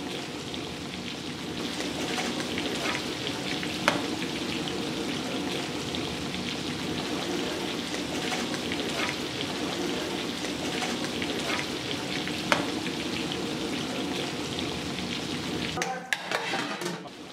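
Marinated chicken pieces deep-frying in a large kadai of hot oil: a steady sizzle full of small crackles, with two sharp clicks as a perforated ladle scoops out pieces. The frying sound breaks off near the end.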